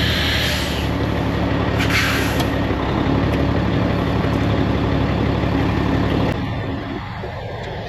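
Sterling semi-truck's diesel engine running steadily, with a short hiss of air at the start and another about two seconds in. The engine sound drops in level about six seconds in.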